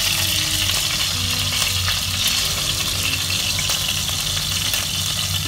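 Flour-dredged salt cod fillets frying in hot oil in a pan: a steady crackling sizzle.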